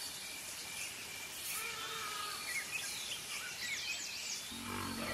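Several birds chirping and calling in short rising and falling notes over a steady background hiss, with an insect's thin, steady high drone. A low pitched sound comes in near the end.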